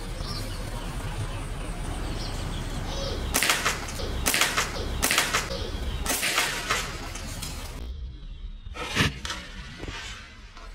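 Slingshot shooting: a few sharp, hissing snaps as the rubber bands are let go, then a single sharp impact about nine seconds in.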